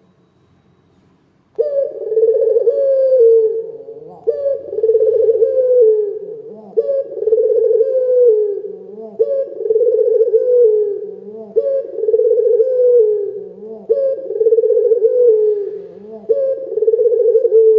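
A Barbary dove (the Indonesian local puter) cooing loudly, a rolling coo repeated about every two and a half seconds, seven times, starting about a second and a half in.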